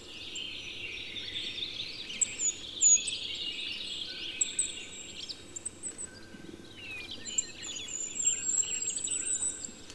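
A chorus of birds chirping and twittering, densest in the first half, with high thin whistled notes above and a soft background hiss.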